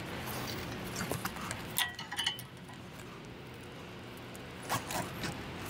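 A bicycle rack's securing strap being worked around a bike's wheel and frame: scattered light clicks and rattles, with a cluster and a short squeak about two seconds in and a couple more near the end, over a low steady hum.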